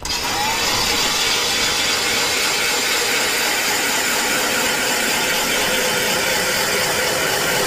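Power ice auger drilling a hole through lake ice, a steady mechanical noise that starts abruptly and runs without a break.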